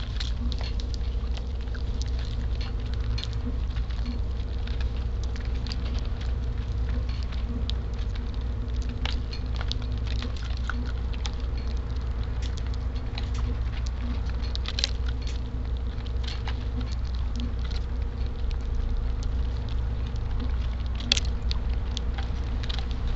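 Eurasian tree sparrows pecking and hopping at food: a scatter of small, sharp, irregular taps and ticks over a steady low rumble.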